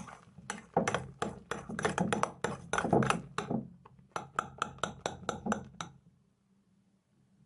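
A spoon knocking and clinking against a mixing bowl in quick, repeated strokes while stirring shaving foam into slime mixture; the clinks stop about six seconds in.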